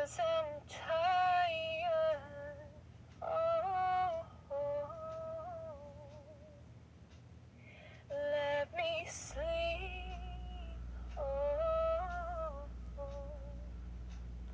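A girl singing alone in high held notes with a slight waver, in four short phrases separated by pauses.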